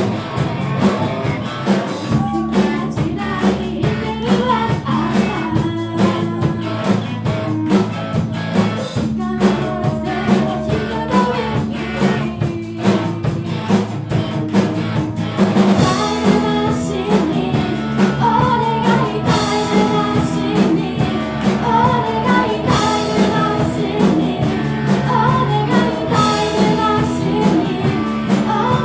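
A live rock band playing a song: drum kit keeping a steady beat under bass, guitar and a singing voice, with the arrangement shifting about nine seconds in and building again a few seconds later.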